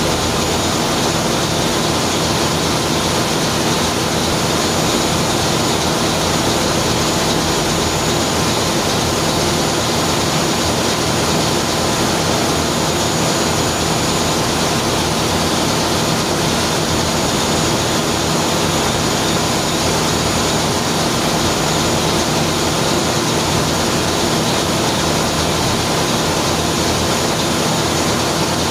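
Ship's in-line multi-cylinder diesel engine running steadily: a loud, even engine-room drone with a steady hum under a dense hiss.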